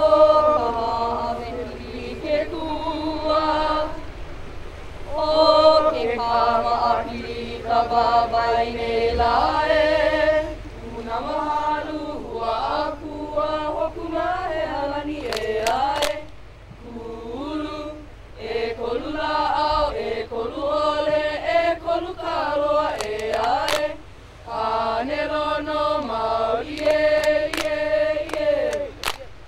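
Group of voices chanting a Hawaiian oli in unison: long held notes that bend in pitch, phrase after phrase, with short pauses between the lines.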